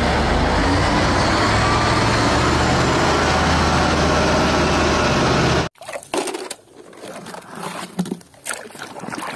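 A Liebherr mobile crane's diesel engine running steadily, with a deep low rumble under a dense noise. It cuts off suddenly about six seconds in, and quieter clicks and trickling water from a muddy toy truck being handled follow.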